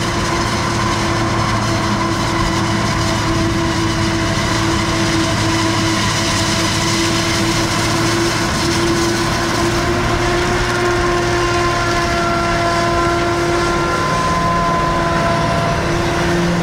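Self-propelled forage harvester chopping maize, running steadily: a loud engine drone with steady whining tones from the machine. A second, lower engine note comes in near the end.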